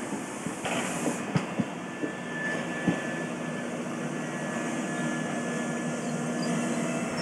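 InterCity passenger coaches rolling past at speed: a steady rumble of wheels on rail, with a few sharp clicks over rail joints in the first three seconds.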